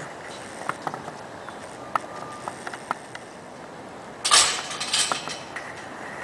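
Metal hardware on a lattice antenna mast being handled: scattered light clinks and clicks, with a louder rattling clatter lasting about a second just over four seconds in.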